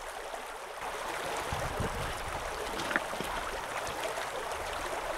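Mountain stream running over rocks: a steady rush of water, a little louder from about a second in.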